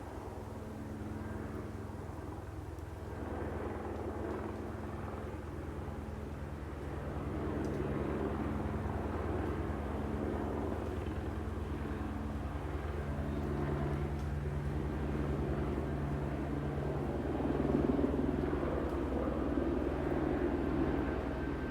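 Steady low engine drone that grows gradually louder.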